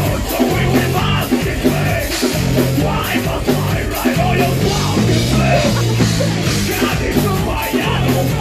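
Metalcore band playing live and loud: a fast, even drum beat under heavy bass and distorted guitars, with a shouted vocal over it.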